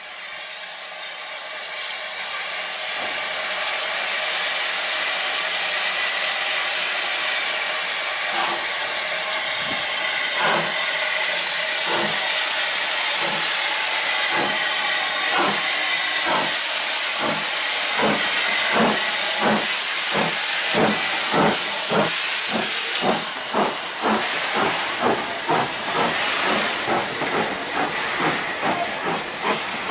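Great Eastern Railway J15 0-6-0 steam locomotive No. 564 starting away with its train: a loud steady hiss of steam, then exhaust chuffs from about eight seconds in that come faster and faster as it gathers speed.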